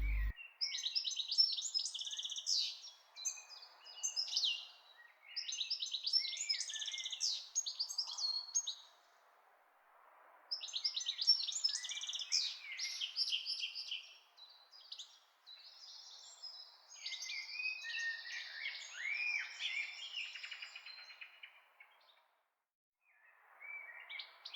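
Small birds chirping and twittering in quick, high trills, in several separate bursts broken by short silent gaps.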